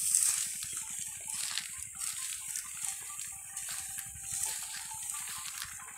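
Rustling and crackling of dry cut wheat straw being handled and walked through, over a steady high hiss.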